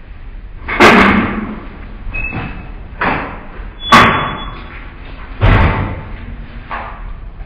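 Metal-framed exit doors with push bars opening: a series of about five clunks and bangs, with brief squeaks, echoing in a hard-walled hallway.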